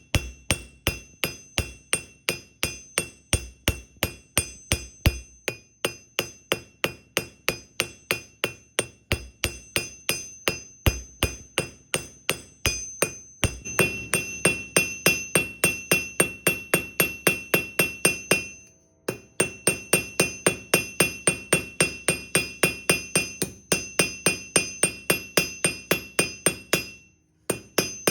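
Blacksmith's hammer striking hot steel on an anvil in a steady run of blows, about three to four a second, each with a high metallic ring. The work is forging a horseshoe tip into a small pendant. The hammering stops briefly twice, about two-thirds of the way through and near the end.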